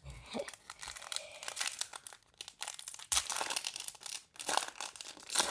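Crinkling and rustling of a Panini Prizm trading card pack wrapper and cards being handled, an irregular crackle that gets louder about halfway through.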